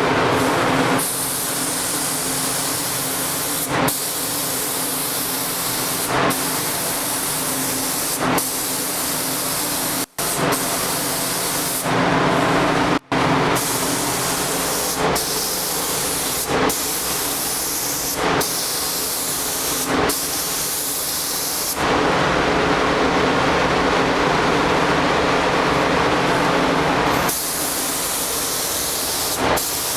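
SATA paint spray gun hissing as compressed air atomizes paint onto the car body. The steady spray is broken briefly every two seconds or so between passes, with a low steady hum underneath.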